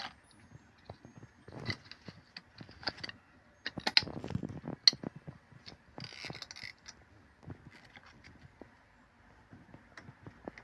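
Typewriter ink ribbon spool being wound round by hand: irregular small clicks and rattles of the spool mechanism, busiest about four to five seconds in.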